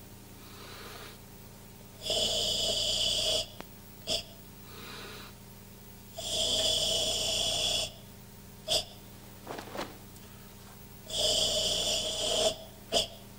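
Forceful ibuki breathing of a karateka performing Tensho kata: three long, loud hissing exhalations about four seconds apart, with short sharp breaths between them.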